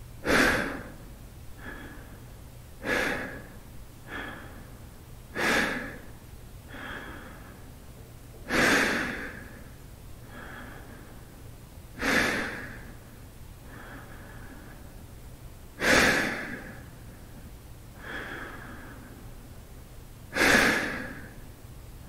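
A man breathing slowly and deeply. There are seven loud breaths, each starting suddenly and fading, each followed by a quieter breath. They come about every two and a half seconds at first and slow to over four seconds apart.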